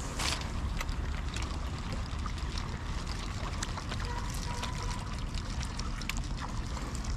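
Water lapping and trickling against a wooden boat on a river, steady throughout, with scattered light ticks and a low rumble underneath.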